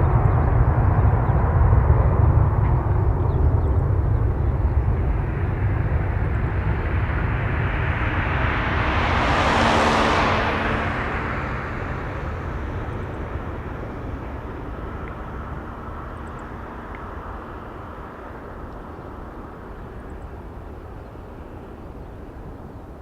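Airbus A321-211 jet airliner's CFM56 turbofan engines at takeoff power, a loud low rumble that swells to a peak with a rushing hiss about ten seconds in as the plane passes closest, then fades steadily as it climbs away.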